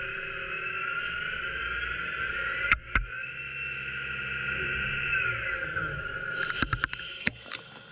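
Haas ST-15Y CNC lathe turning a round bar: the spindle drive whines in several steady high tones over a low rumble, the pitch gliding up about two seconds in and back down near five seconds. A sharp knock comes about three seconds in, and a quick run of clicks near the end.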